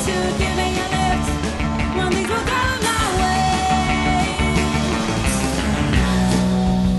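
Recorded rock music with a singing voice over a full band.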